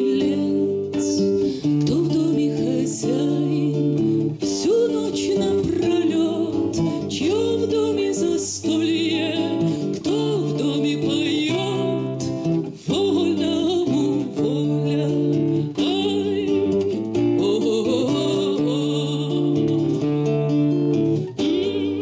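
A woman sings a Russian bard song, accompanying herself on a classical guitar with plucked chords; some of her held notes carry vibrato.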